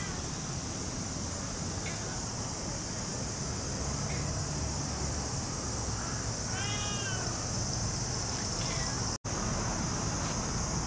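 Cat meowing: a few short, faint meows and one longer, clearer meow about seven seconds in, over a steady high-pitched hiss.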